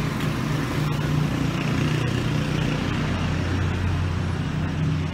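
Street traffic: a motor vehicle's engine running close by with a steady low hum, a little louder from about a second in.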